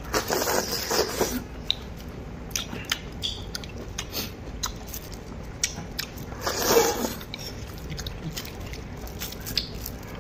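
A person slurping from a bowl of hot malatang: a long slurp in the first second or so and another about six and a half seconds in, with chewing and small clicks between.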